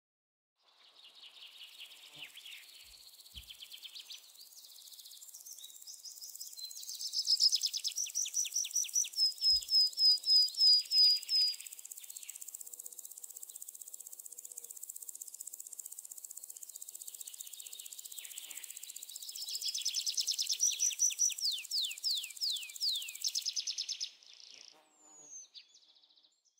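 Natural bush ambience: a steady high-pitched drone of insects, with a bird calling in two loud runs of rapidly repeated chirping notes, the second run ending in quick falling notes.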